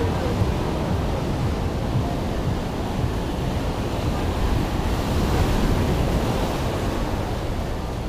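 Ocean surf breaking on a rocky shore, a steady rushing wash, with wind buffeting the microphone.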